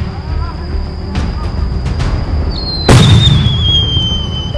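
Background music with fireworks bursting: a loud boom about three seconds in, with fainter bangs before it.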